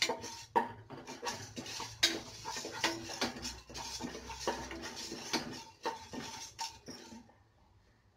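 A metal spatula scrapes and knocks irregularly against the bottom of an aluminium pressure cooker as chana dal is stirred and roasted, with the lentils rattling over the metal and a faint ring from the pot. The stirring stops about seven seconds in.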